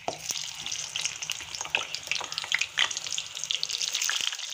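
Smoking-hot oil in a kadai sizzling and crackling as whole small potatoes, pricked with a fork, are dropped in one after another to deep-fry; the sizzle grows louder as more go in.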